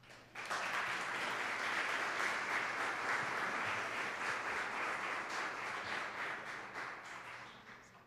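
Audience applauding, starting about half a second in, holding steady, then dying away near the end.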